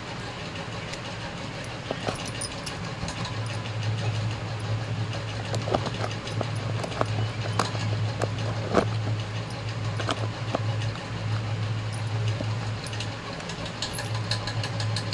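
A steady low motor hum, with scattered light clicks and taps from small objects and glass bangles being handled.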